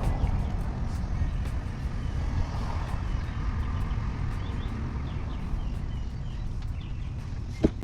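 Steady low rumble of a vehicle running, with one sharp click near the end.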